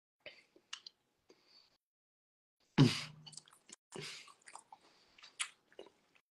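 A person chewing a mouthful of food, with irregular wet smacks and small mouth clicks; about three seconds in comes a short louder noise with a brief low hum.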